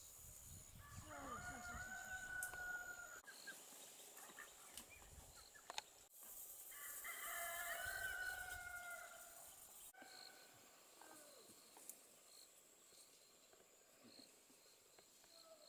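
A rooster crowing twice, each crow about two seconds long, the second about six seconds after the first and louder. A fainter, shorter call follows a few seconds later.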